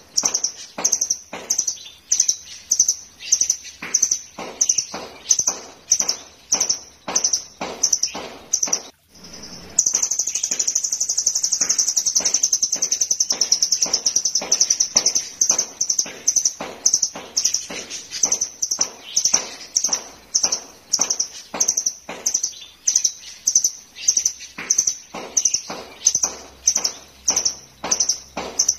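Caged blue nuthatch (rambatan doraemon) calling: sharp, high notes repeated about three times a second. About ten seconds in, a brief pause gives way to a fast continuous trill of several seconds, before the spaced notes resume.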